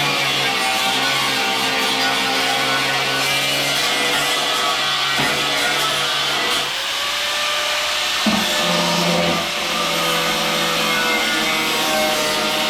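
Background music led by guitar, played at a steady level.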